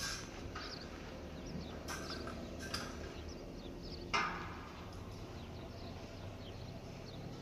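Small birds chirping over a low steady hum, broken by a few sudden knocks, the loudest about four seconds in.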